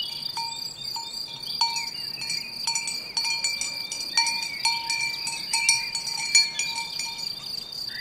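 Cowbells clanking irregularly, about once a second, over a steady high chirring of crickets.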